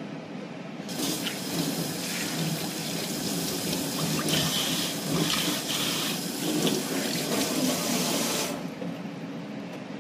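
Kitchen tap running onto a gutted catfish held under it in a stainless-steel sink, the water splashing unevenly off the fish as it is rinsed. The water comes on about a second in and stops about a second and a half before the end.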